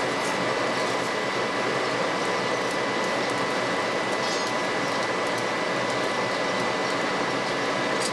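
Blacksmith's coal forge with its air blower running: a steady rushing of air with a thin steady tone over it, and a few faint ticks.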